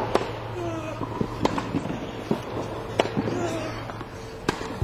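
Tennis rally: sharp pops of the ball off the rackets, about one every second and a half.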